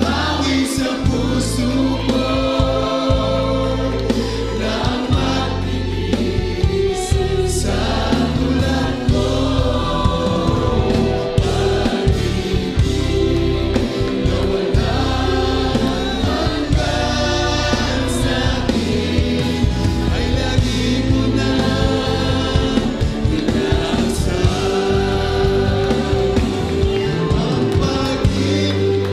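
A choir sings a Tagalog worship ballad, with a male lead voice on a microphone, over instrumental backing.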